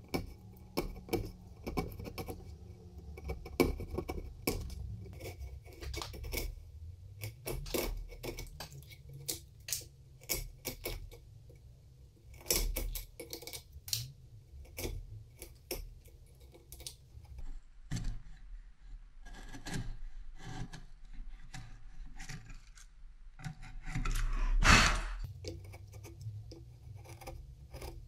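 Steel chisel cutting in the mortise of a quartersawn beech plane body: a long irregular string of sharp clicks and taps as the edge bites and levers out chips, with scraping paring cuts. About three-quarters of the way in comes one louder scrape lasting about a second.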